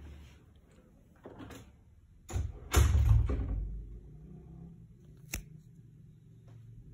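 A loud, muffled thump with rustling about halfway through, then a single sharp click near the end.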